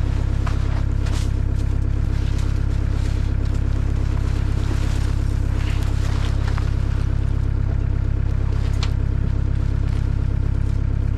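An engine idling steadily, with a few light knocks and scrapes over it.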